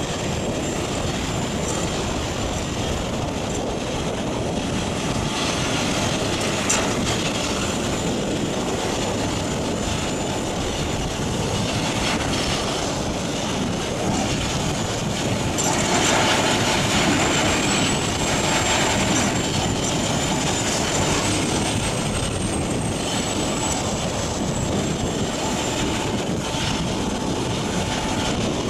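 Morbark HT1684 Predator slow-speed tracked shredder running under load, its 500 hp diesel engine and shredding shaft grinding waste wood in a steady heavy din. A few sharp cracks come early, and a thin high whine wavers in pitch through the second half.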